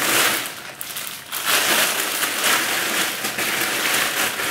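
Packaging rustling and crinkling as a delivery parcel is unwrapped by hand, with a short lull about a second in.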